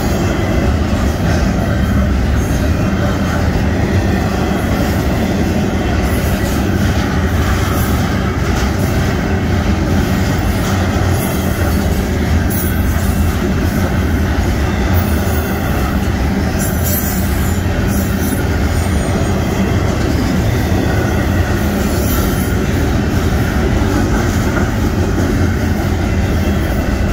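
Double-stack intermodal container cars rolling past at steady speed: a continuous loud rumble of steel wheels on rail, with a short high-pitched wheel squeal now and then.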